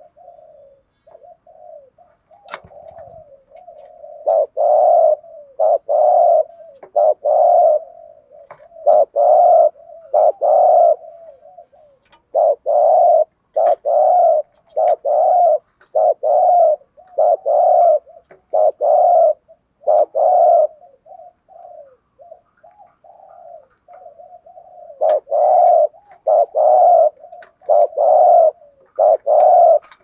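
Spotted dove cooing: runs of loud, even coos about half a second each, with a soft continuous low cooing between the runs. This is the bowing 'gù' coo that keepers call thúc gù.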